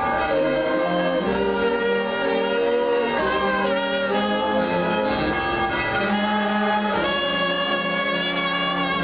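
A brass band of trumpets, saxophones and drums playing a slow tune in long held chords.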